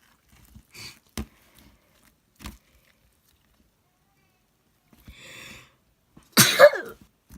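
Slime being handled: scattered small sticky clicks and pops, a brief hiss about five seconds in, then a loud short burst near the end.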